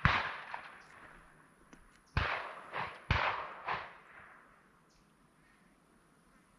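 Shotgun blasts from several guns, each trailing off in echo: one right at the start, two more about two and three seconds in with fainter shots between, then the shooting dies away.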